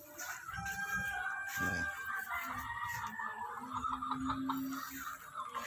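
Roosters in a gamefowl yard: one crows a long, drawn-out crow starting about half a second in and trailing off in a wavering run at about three seconds.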